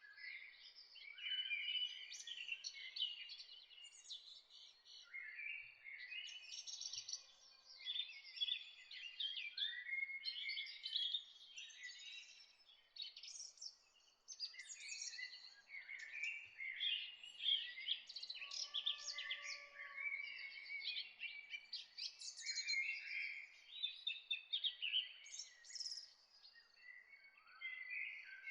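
Several songbirds singing and chirping at once, a steady chorus of overlapping quick chirps and trills.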